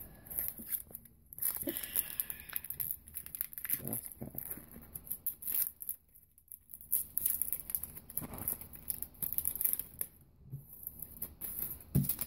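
Foil trading-card pack wrapper crinkling and tearing as it is handled and opened, in irregular crackling bursts with a short lull about halfway, and a knock near the end.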